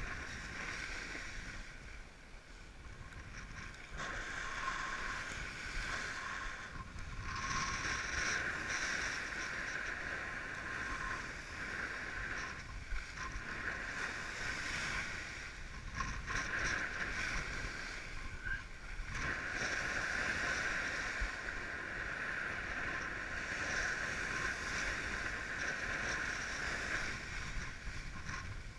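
Water rushing and splashing against a windsurf board as it moves through shorebreak whitewater, a steady rush that surges and eases with brief lulls.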